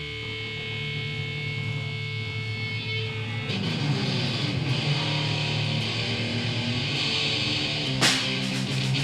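Live rock band playing an instrumental passage led by distorted electric guitar. Held notes give way to a fuller, busier part about three and a half seconds in, and a sharp hit lands near the end.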